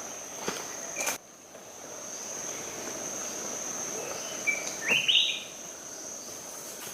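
Steady high-pitched insect drone in forest, with a brief rising bird call about five seconds in. A few knocks, like footsteps, come in the first second.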